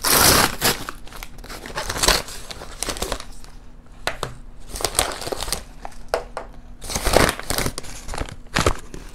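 Kraft-paper Amazon mailer bag being torn open and crinkled as its contents are pulled out: irregular loud bursts of paper rustling and tearing, the loudest right at the start.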